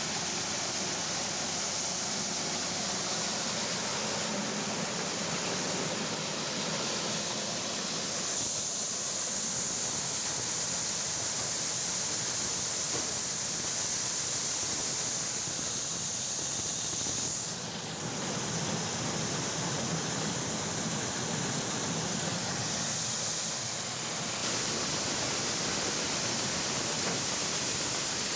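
Corn harvesting machine running steadily, a loud, hissing machine noise with a faint low hum, shifting in character abruptly a few times.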